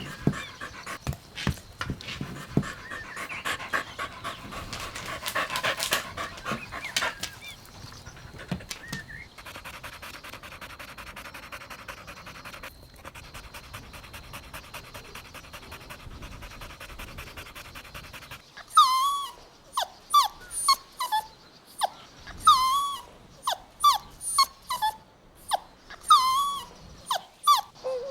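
Golden retriever puppies: rapid panting, then, about two-thirds of the way in, a string of about a dozen short, high-pitched whimpering yelps, each dropping in pitch, one or two a second.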